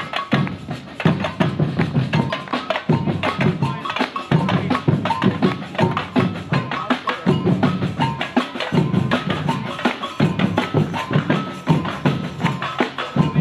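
Marching street percussion group playing a fast, dense rhythm: deep strokes on large surdo bass drums under sharp snare-drum hits.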